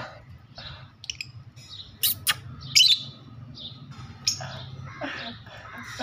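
Pet lovebirds chirping in quick short calls, with a few louder shrill squawks about two and three seconds in.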